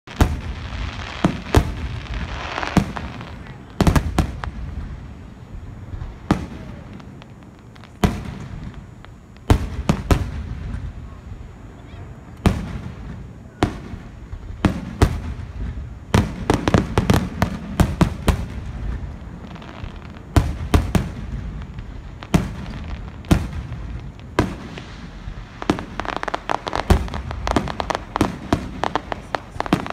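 Fireworks display: aerial shells going off in sharp bangs every second or two at irregular intervals. Dense runs of rapid crackling pops come about halfway through and again near the end.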